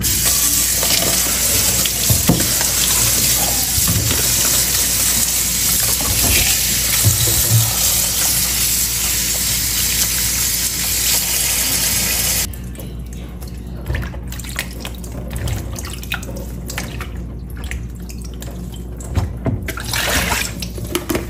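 Kitchen tap running into a plastic salad-spinner bowl as strawberries are rinsed by hand in a stainless steel sink. The running water stops a little over halfway through, leaving water splashing and draining and light knocks of the plastic basket being handled.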